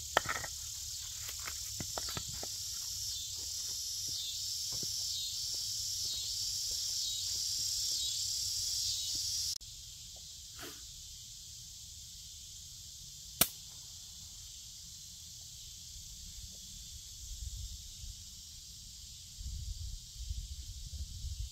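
A steady, pulsing insect chorus with scattered stone knocks as flat rocks are set down around a fire ring. After a cut the insects are quieter, a strike-anywhere match is struck with one sharp snap, and soft crackling and rustling follow near the end as the twig tinder catches.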